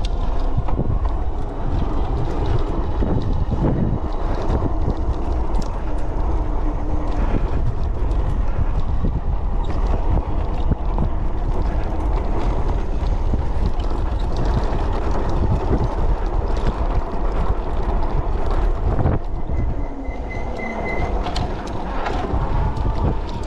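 Electric bike riding over a rough dirt trail: a steady rumble and rattle of tyres and frame over rocks, peppered with clicks and knocks, with wind buffeting the microphone.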